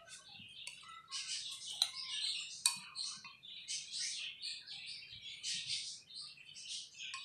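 Small birds chirping and twittering in the background. Two light clinks come about two and three seconds in, a metal spoon knocking against a glass mug while seeds are scooped out of soaked tamarind pulp.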